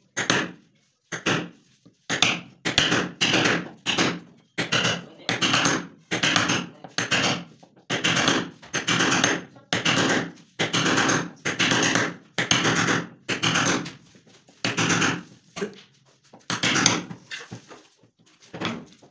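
Hammer blows on a chisel, about two a second, cutting a slot into a laminated wooden board panel.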